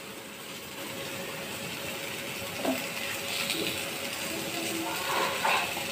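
Ash gourd slices and onions sizzling in oil in a frying pan, stirred with a wooden spatula.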